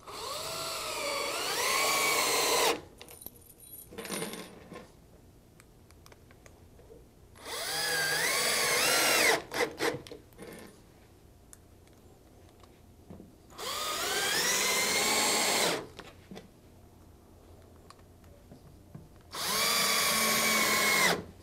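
Cordless drill/driver driving stainless steel deck screws straight into cellular PVC deck boards without pre-drilling, four runs of about two seconds each. The motor's whine rises in pitch as it spins up on each screw, with small clicks between the runs.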